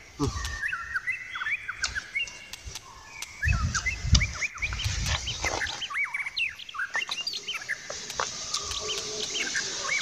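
Several small birds chirping, many quick overlapping chirps and short calls. A few low rumbles come about halfway through.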